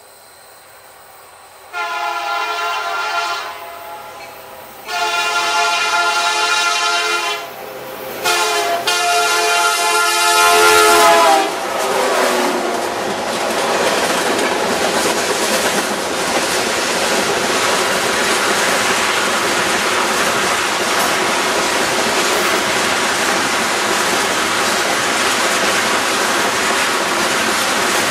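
BNSF SD70MAC diesel locomotive sounding its multi-chime air horn in the grade-crossing pattern of two long blasts, a short one and a long one, the last bending slightly down in pitch as the locomotive passes. Then the freight train's covered hoppers and tank cars roll by with a steady rumble and wheel clickety-clack.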